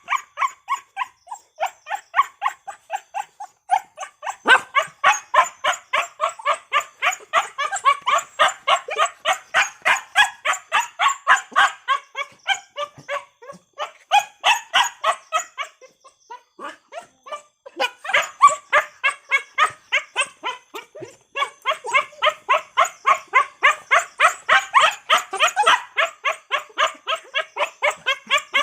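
Dog barking in fast, continuous runs of short barks, about four a second, broken by a few brief pauses, the longest a little past halfway.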